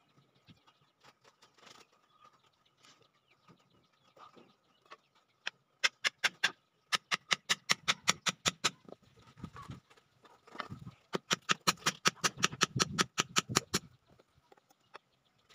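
Claw hammer driving a nail into a bamboo stake: two runs of quick, sharp strikes, about five a second, the first starting about six seconds in.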